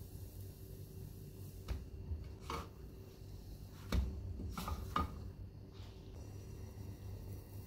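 A plastic spatula scraping and knocking against a nonstick frying pan a few times as a pancake is turned and lifted out, the strongest knocks about four and five seconds in, over a steady low hum.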